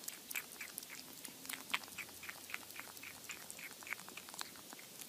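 Kitten chewing on the rim of an orange plastic lid: a quick series of small sharp clicks, about four a second.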